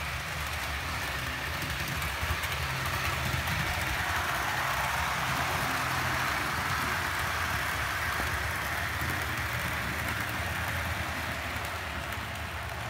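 Model railway locomotive running along the track: a steady whirr of its electric motor with the rumble of wheels on rail, growing louder toward the middle and easing off near the end.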